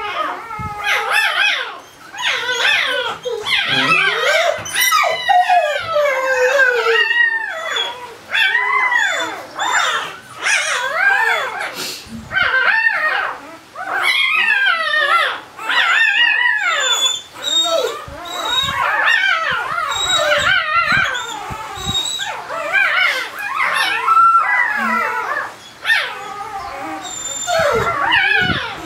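Four-day-old Barbado da Terceira puppy crying in a continuous run of high, rising-and-falling squeals and whimpers as it is held and handled for early neurological stimulation exercises.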